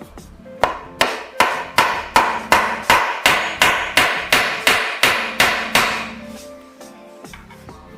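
Hammer driving nails into a wooden chair: a quick, even run of about fifteen blows, close to three a second, that starts just under a second in and stops about six seconds in. Background music plays underneath.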